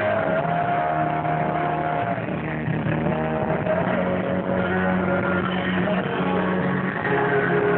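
Live acoustic band music through a concert PA, heard from within the audience: long held notes that slide slowly in pitch over a steady accompaniment, muffled by a phone's low-quality recording.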